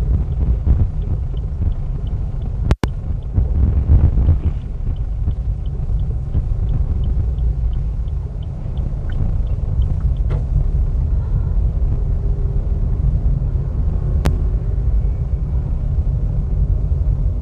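Car driving, heard inside the cabin: a steady low road and engine rumble. For the first several seconds there is a light, evenly spaced ticking, the turn-signal indicator. The sound cuts out for an instant about three seconds in, and there is a single sharp click later on.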